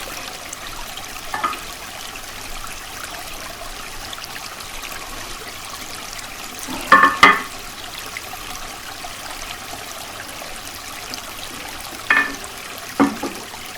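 Shallow creek running steadily over stones, with a few short sounds over it, the loudest about seven seconds in.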